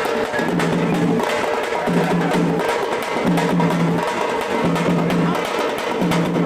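Music dominated by fast, dense drumming, with a low bass note that repeats about every second and a half.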